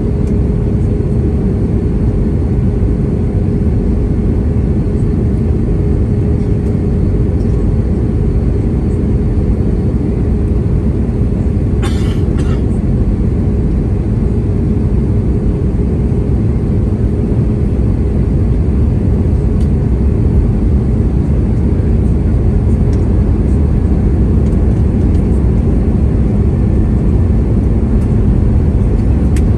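Cabin noise inside an Airbus A320-232: a steady roar from its IAE V2500 engines and the airflow, with a thin steady hum that fades out about two-thirds of the way through. A brief rattle comes just under halfway in.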